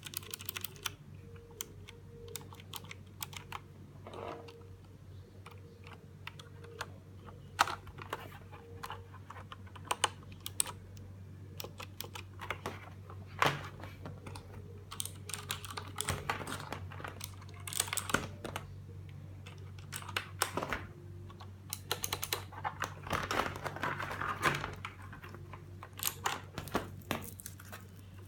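Typing on a Redragon K300 mechanical keyboard with clicky blue switches: irregular keystroke clicks, with a quicker flurry of keys about three-quarters of the way through, over a steady low hum.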